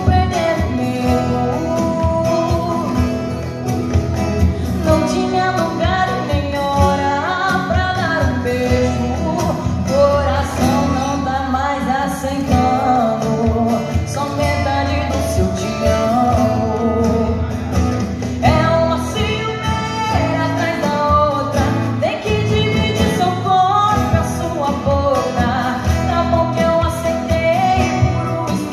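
A woman sings a sertanejo song live into a microphone, accompanied by acoustic guitar, amplified through PA speakers.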